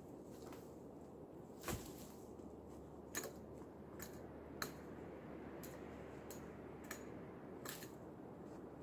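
Dry twigs and brush snapping and crackling as someone moves and works among fallen branches in snow: about eight sharp, irregular cracks, the loudest about two seconds in, over a faint steady hiss.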